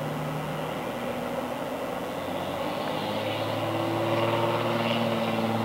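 BNSF double-stack container train rolling past: a steady rumble of wheels on the rails, getting louder about halfway through, with a steady hum joining it.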